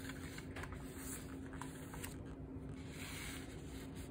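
Paper pages of a picture book being turned and smoothed by hand: soft rustles and rubs at intervals, clustered about a second in, around two seconds in and again near three seconds, over a faint low steady hum.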